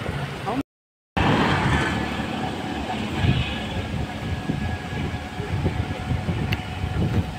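Steady rumbling travel noise of a moving vehicle, with a brief cut to silence about half a second in.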